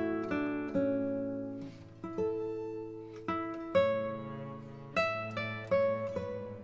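Background music: a plucked string instrument picking a slow melody, each note struck sharply and left to ring out, about one or two notes a second.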